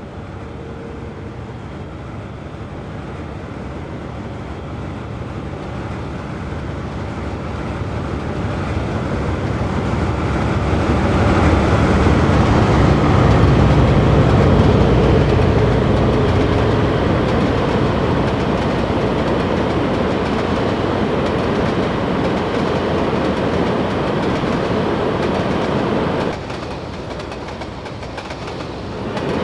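Train running past on the rails. The noise builds over the first dozen seconds, then holds steady; it drops suddenly a few seconds before the end and comes back up at the end.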